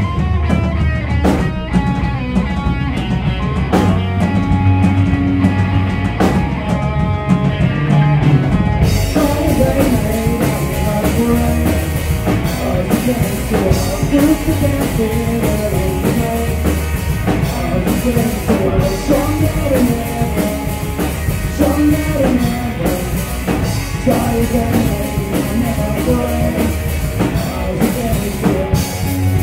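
Live rock band playing: electric guitar, electric bass and drum kit, with a voice singing over them. The sound turns fuller and brighter about nine seconds in.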